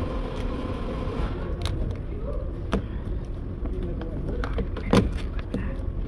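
Sharp clicks and knocks of parts being handled inside a stripped car door, the loudest knock about five seconds in, over a steady low workshop rumble; a steady hum fades out about a second in.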